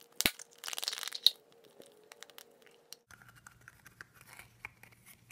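Plastic surprise egg being opened and handled: a sharp click, then a crinkly crackle about a second in, then small plastic clicks and rustles.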